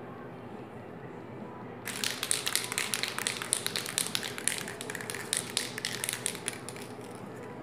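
Krylon Rust Protector aerosol spray can spraying paint: an uneven hiss dotted with quick crackles, starting about two seconds in and stopping shortly before the end.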